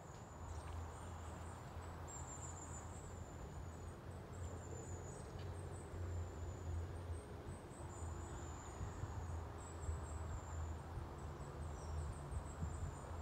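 Outdoor riverside ambience: a low steady rumble under a faint hiss, with thin high-pitched chirping running throughout.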